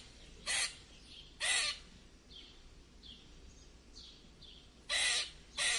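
Birds calling: four short, harsh calls, two near the start and two near the end, with fainter short downslurred chirps in between.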